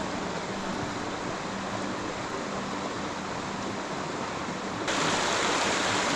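Fast-flowing stream water running over rocks, a steady rushing hiss that suddenly gets louder about five seconds in.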